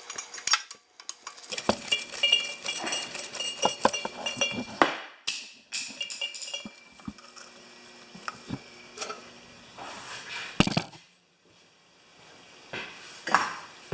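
Metal hand tools and small engine parts clinking and clattering, with a few brief ringing tones, as the valve-chamber cover plate is taken off a small Briggs & Stratton engine. The clatter stops briefly about three-quarters through, then a few more clinks follow.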